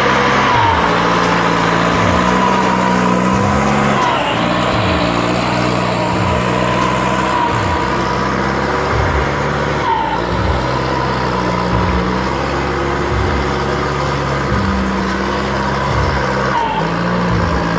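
Skidder's diesel engine running steadily under load while dragging a bundle of logs, its pitch shifting a few times.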